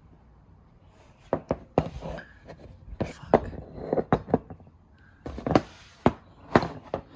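Irregular sharp clicks and knocks of hard parts being handled and set down, starting about a second in and going on in quick, uneven succession.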